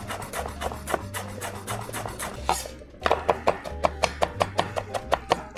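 Knife finely chopping fresh parsley on a cutting board: a quick run of sharp taps, about five a second, with a brief pause around the middle.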